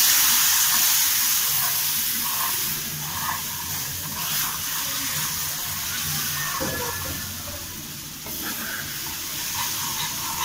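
Hot sugar syrup hitting ghee-roasted semolina in a frying pan, sizzling and hissing with steam while a metal spoon stirs it in with faint scrapes and knocks. The hiss is loudest at first and eases off as the syrup is worked in.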